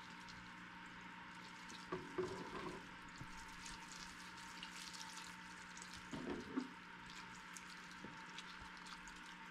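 Water pouring from a half-gallon plastic watering can onto dry potting soil, a faint steady trickle and hiss over a low steady hum, with two brief louder sounds about two and six seconds in.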